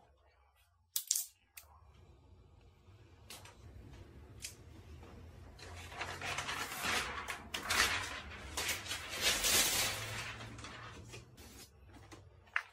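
Handling noise from working on the all-in-one PC's plastic and metal parts: a sharp click about a second in, then scraping and rustling with scattered clicks that grow louder in the middle and die down near the end.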